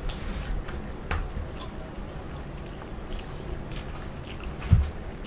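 Close-up mouth sounds of eating: wet chewing and lip smacks with scattered small clicks, and one low thump about four and a half seconds in.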